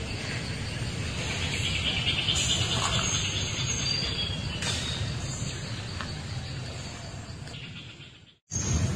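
Steady forest insect chorus with a low rumble underneath. It fades out to a brief silence near the end, then starts again.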